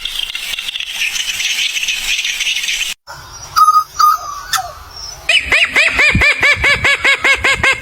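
A run of animal calls in three short pieces: a dense chorus of high calls, then after a sudden cut a few clear calls, then a fast series of repeated rising-and-falling calls, about seven a second.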